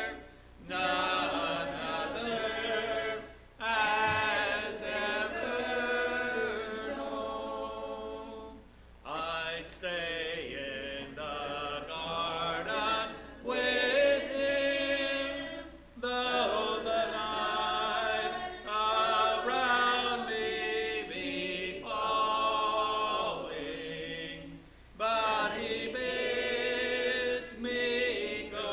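Congregation singing a hymn a cappella in mixed voices, line by line, with short breaks for breath between phrases.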